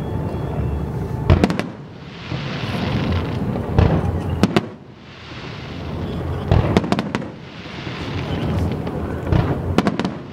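Aerial fireworks shells bursting, heard from a distance: several sharp bangs in four groups, each with a low rolling rumble after it. Between the bangs there is a steady hissing rush.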